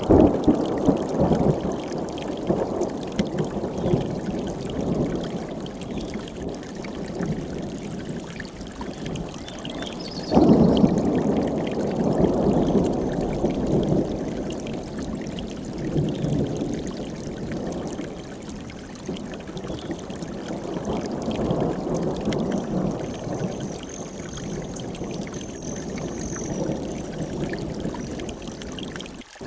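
Mountain stream's rushing water, a steady full-bodied splashing that surges suddenly at the start and again about ten seconds in, easing off over the following seconds. A faint thin high whistle sounds over it near the end.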